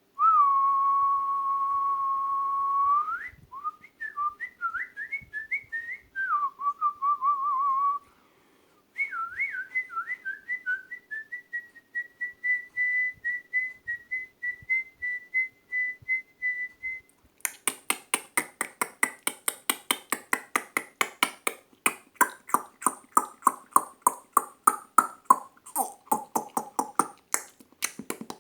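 A person whistling a birdsong imitation with the mouth: a held note, then warbling trills that glide up and flutter on a higher pitch. About two-thirds of the way through it changes to rapid mouth clicks, about four a second.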